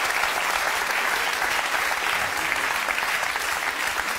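Studio audience applauding steadily, a dense even clapping throughout.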